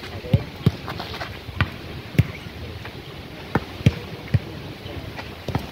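A volleyball in play on an asphalt court: about eight sharp, irregularly spaced thuds of the ball being struck and landing, the loudest about two seconds in.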